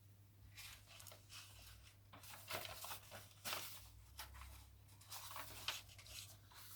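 Paper pages of a handmade junk journal being turned and handled: a run of soft, irregular rustles and crinkles.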